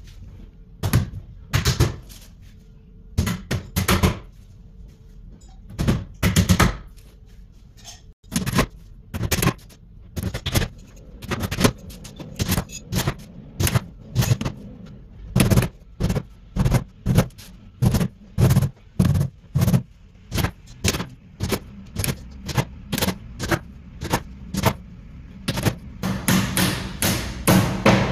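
Hammer tapping small nails into the back panel of a flat-pack IKEA Knoxhult cabinet. The blows come in short groups at first, then settle into a steady run of about two taps a second.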